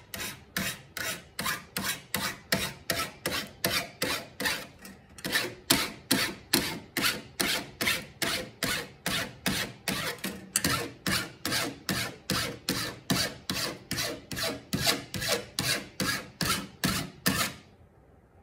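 Flat metal hand file rasping along the edge of a thin copper plate in quick, even strokes, about two or three a second, beveling the plate's edge. The strokes stop about a second before the end.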